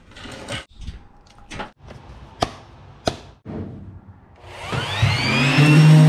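Handling knocks and two sharp clicks, then an electric random orbital sander starts up about four and a half seconds in, its whine rising in pitch as it comes up to speed and runs against the truck bed's worn paint.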